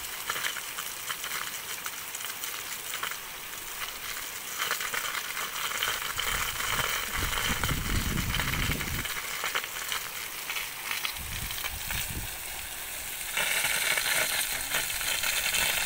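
Pressurised water hissing as it sprays from a badly leaking buried water-supply pipe, getting louder about 13 seconds in.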